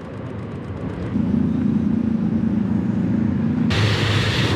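A vehicle running close by: a steady low hum comes in about a second in, and a loud hiss joins it near the end.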